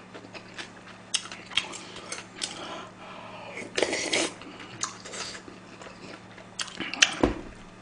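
Close-miked eating from a metal spoon and bowl: small clicks of the spoon and mouth, then a half-second slurp of stew broth about four seconds in, followed by chewing.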